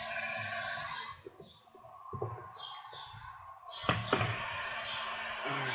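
Electric heat gun blowing against tint film on a tractor window. Its hiss fades about a second in, leaving short high chirps and a couple of sharp knocks, then comes back near the end.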